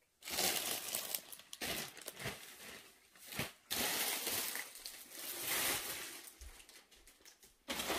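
Rustling and crinkling of clothes being handled and unfolded, in several spells with short pauses and a brief lull near the end.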